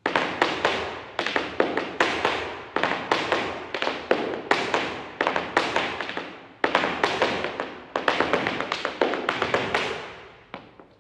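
Flamenco footwork (zapateado): rapid volleys of heel and toe stamps from flamenco shoes on a bare floor, in quick runs broken by short pauses, echoing in a large empty room. The stamping starts suddenly and thins out near the end.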